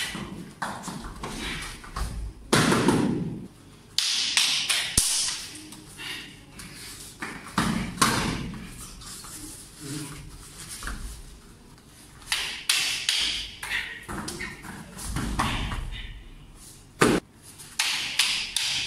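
Barefoot stick-grappling sparring on foam puzzle mats: irregular scuffling of feet and bodies, thuds as bodies hit the mats in takedowns, and light taps. A single sharp knock stands out near the end.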